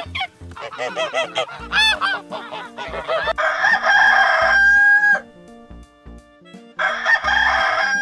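Greylag geese giving a run of short honking calls for the first three seconds, then a rooster crowing twice: one long crow held on a steady pitch ending about five seconds in, and a second starting near the end. Background music plays underneath.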